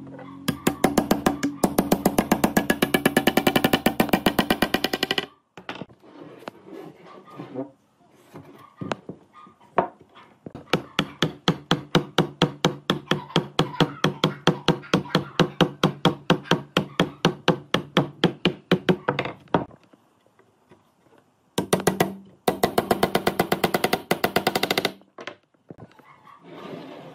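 Rapid, even series of sharp ringing strikes, about four or five a second, coming in three runs of several seconds each.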